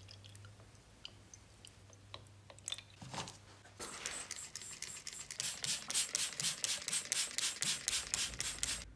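Water trickling into a plastic bottle with small clicks, then a hand trigger spray bottle misting water, its trigger pulled rapidly in even strokes, several a second, each giving a short hiss; the spraying stops sharply near the end.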